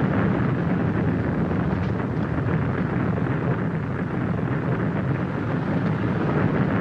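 Large bonfire burning with a steady rushing noise and a few faint crackles.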